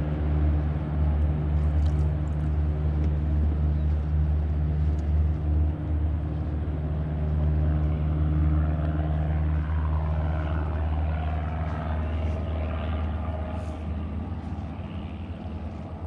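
Float plane's propeller engine running steadily on the water, growing quieter over the last few seconds.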